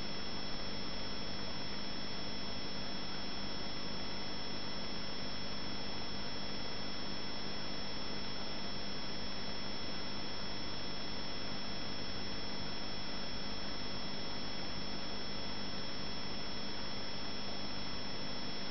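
Aquarium bubbler and tank running: a steady hiss of rising air bubbles over a constant low hum.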